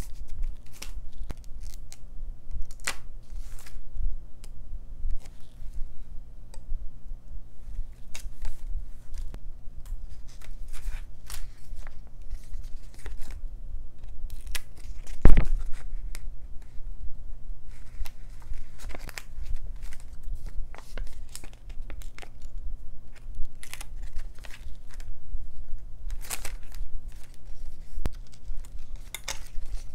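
Paper stickers being peeled off their backing sheet and pressed onto a diary page, heard as short scattered tearing and rustling sounds with light clicks. There is one sharp knock about halfway through.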